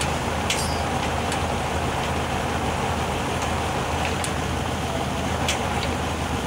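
Scania crane truck's diesel engine running steadily while the crane lifts a load, with a few sharp clicks over it.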